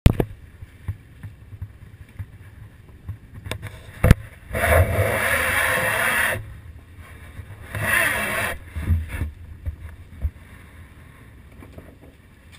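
Sportfishing boat backing down under engine: a steady low rumble with wind on the microphone. About four and a half seconds in comes a two-second surge of rushing, hissing water, then a shorter one about eight seconds in, with a few sharp knocks before the first.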